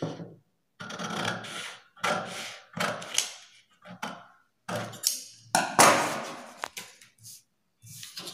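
Large tailoring scissors cutting through thick brown pattern paper in a run of separate snips, about one a second, as a blouse pattern piece is cut out.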